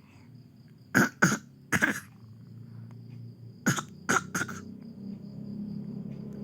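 A baby giving short, put-on fake coughs: three quick coughs about a second in, then three more a little before the four-second mark.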